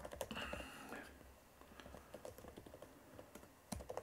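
Faint typing on a computer keyboard: a run of light key clicks at an uneven pace.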